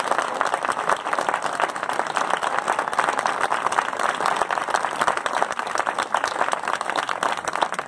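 Crowd applauding: steady clapping of many hands.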